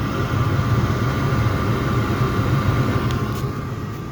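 ICP furnace running while fired, a steady low rumble with a faint steady higher hum above it.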